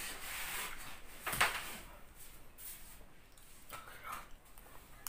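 Rustling and shuffling of a person getting up and moving away from a table, with one sharp knock about a second and a half in.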